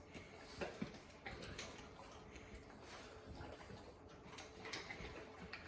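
Faint, scattered light clicks and taps from a dog moving about and eating on a hard floor.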